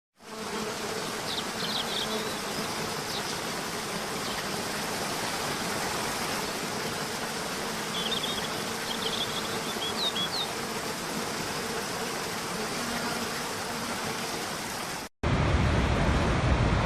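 Steady rush of falling water with a few short high chirps about a second in and again around eight to ten seconds in. About fifteen seconds in it cuts abruptly to a louder, deeper rush of water.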